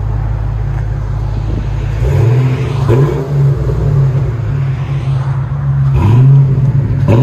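A 1995 Ford Mustang GT's 5.0 L V8 through an X-pipe and Flowmaster Super 10 mufflers. It idles with a deep, steady note, then is revved in short blips about two seconds in and again about six seconds in.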